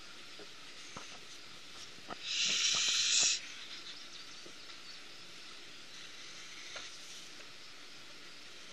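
Colored pencil scratching across paper: a hiss lasting about a second, starting about two seconds in, with faint light taps of the pencil tip before and after.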